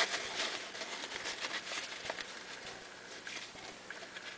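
Paper towel rustling and crinkling as it is rubbed over a fountain pen's nib and section to wipe off ink. The sound is busiest in the first couple of seconds, then tapers off.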